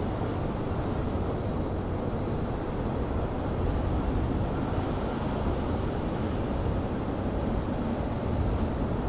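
Steady low rumble of a winter railyard's ambience with a faint, steady high whine over it. Two short, high chirping bursts come about five and eight seconds in.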